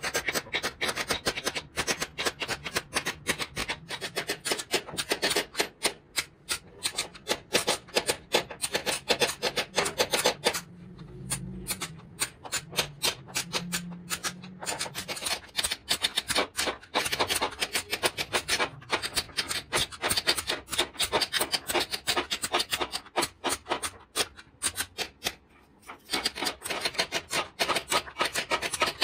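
A hand tool rubbing over wood in quick back-and-forth strokes, pausing briefly about a third of the way in and again near the end.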